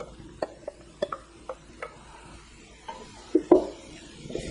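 Diced onion and bell pepper tipped from a glass bowl into a stainless steel pot and stirred with a wooden spoon: a run of light clicks and knocks, a couple a second, with a few louder knocks about three and a half seconds in, over a faint sizzle of turkey and vegetables sautéing.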